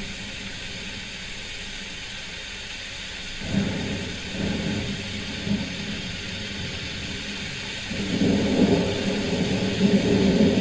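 Thunderstorm sound effect: steady rain hiss, with thunder rumbling in about a third of the way through and a longer, louder roll of thunder near the end.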